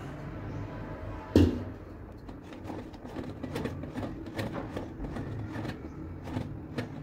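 A metal palette knife spreading whipped cream over a sponge cake layer: a single knock about a second in, then a run of light clicks and scrapes as the blade works the cream.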